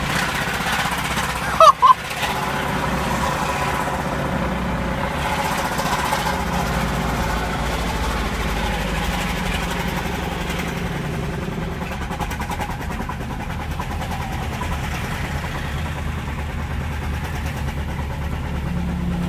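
Subaru Baja's flat-four engine running under way, heard from inside the cabin, with a hard, rapid knock from the failing engine, a bad rod knock. About two seconds in, two short, loud horn beeps.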